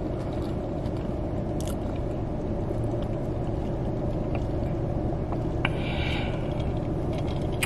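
Steady low rumble of a car's idling engine and ventilation, heard inside the cabin, with a brief faint rustle about six seconds in.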